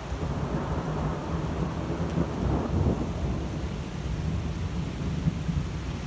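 Thunder rumbling, starting suddenly and swelling to its loudest about halfway through before rolling on.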